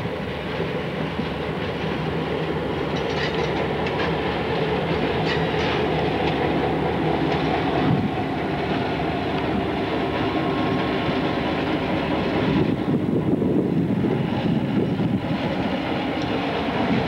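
Passenger train rolling past behind an EMD F7 diesel locomotive: steady rumble of the wheels with clicks as they cross the rail joints, and a steady engine drone in among it.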